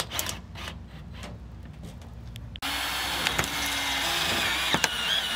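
Cordless drill driving a screw through sheet-metal top cap flashing, its motor running briefly about halfway through. Light clicks and handling knocks come before it.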